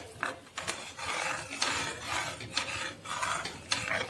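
Metal spoon stirring and scraping around a metal kadhai of thickened milk, in repeated rasping strokes about two a second, working added sugar in until it dissolves.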